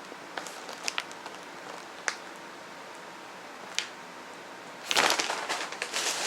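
A few faint scattered crackles, then about five seconds in a loud burst of plastic snack-bag crinkling and rustling as the bag is handled and opened.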